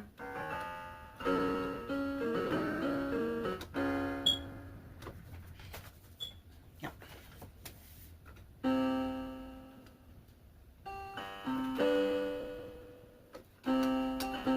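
Electronic keyboard played with a piano sound: slow chords struck and left to ring out and fade, with a longer pause in the middle.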